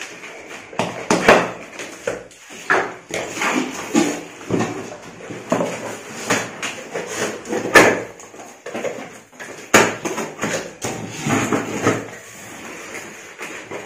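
Cardboard shipping carton being opened by hand: packing tape cut and pulled off, with irregular rustles, scrapes and knocks of the cardboard.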